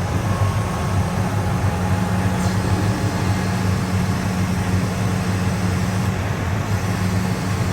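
New Holland combine's diesel engine running steadily, a constant low hum with no change in pitch.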